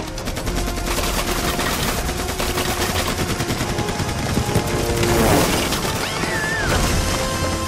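Rapid automatic gunfire in a dense, unbroken stream of shots, over film score music with held notes. A short whine rises and falls about six seconds in.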